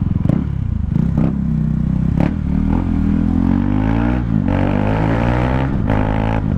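KTM Duke 390's single-cylinder engine running through an open, unmuffled exhaust. It runs low, then rises in pitch as the bike accelerates, dips briefly just past halfway and holds steady at higher revs. A few sharp clicks are heard over it.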